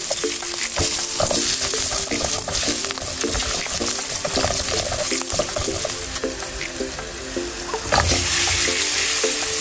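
Oily sauce and onions sizzling in a nonstick pot, with the spatula scraping and clicking as it stirs. About eight seconds in, king oyster mushrooms are tipped into the hot pot and the sizzling gets suddenly louder.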